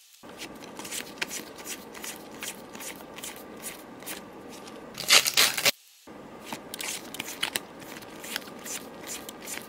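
Pokémon trading cards being handled and slid one behind another, a run of light clicks and snaps over a soft rustle, with a louder crinkling rustle about five seconds in.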